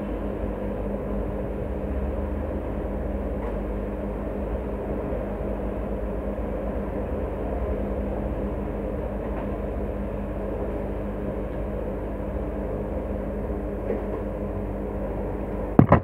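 A steady low mechanical hum and rumble, with one sharp click near the end.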